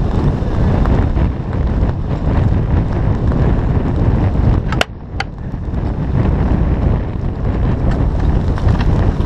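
Wind buffeting the microphone on a sailboat under way, a loud steady rumble throughout. About halfway through it drops out briefly, with two sharp clicks.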